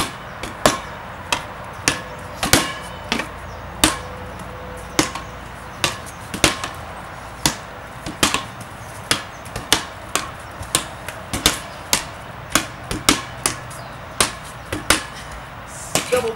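A rubber ball being slapped by hand and bouncing on a concrete patio during a handball rally: a quick, irregular series of sharp smacks, about one to two a second.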